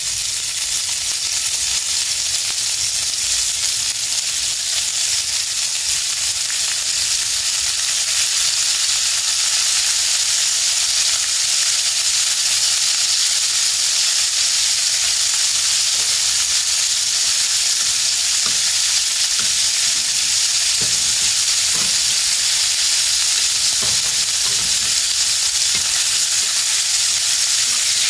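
Cubes of raw pork sizzling in hot rendered bacon and pork fat in a tagine, the sizzle growing louder over the first several seconds as more pieces go in, then holding steady. A few soft knocks come in the second half.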